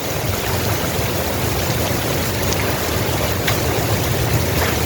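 Heavy rain pouring steadily: a continuous hiss of falling water, with a low rumble underneath and a few faint drop ticks.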